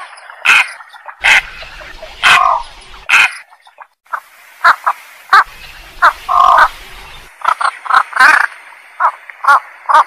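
Lure recording of the belkok sawah's call: a string of short, sharp calls at uneven spacing, some in quick pairs, with a longer wavering note twice.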